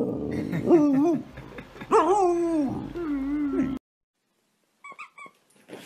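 A husky-type puppy whining and howling: several drawn-out cries that bend up and down in pitch, cut off suddenly after nearly four seconds. After a short silence come a couple of brief high squeaks.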